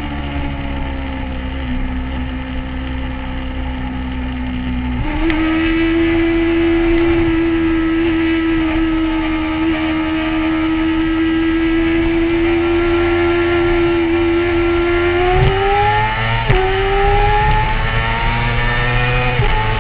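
Motorcycle engine running hard at highway speed. Its pitch steps up suddenly about five seconds in, then climbs under acceleration, falling sharply twice near the end as the rider shifts up through the gears.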